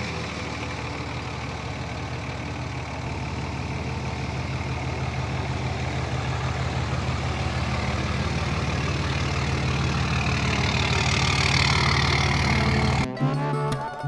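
Dodge Ram's 5.9 Cummins inline-six turbodiesel running steadily just after starting, growing slowly louder as the truck pulls forward. About a second before the end it cuts to guitar music.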